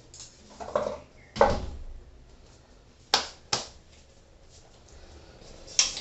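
Aluminium sliding door panel knocking and clicking against its frame and track as it is lifted out: a few dull knocks, the loudest about a second and a half in, then two sharp clicks a little after three seconds and another near the end.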